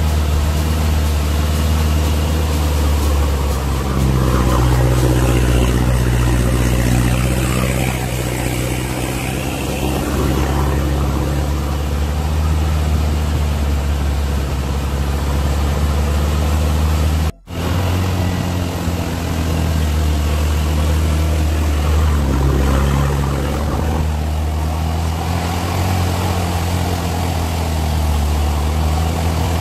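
A 4x4's engine running under load as it wades along a flooded dirt road, with a wash of water noise under the engine. The engine pitch rises and falls a few times. The sound cuts out for a moment a little past halfway.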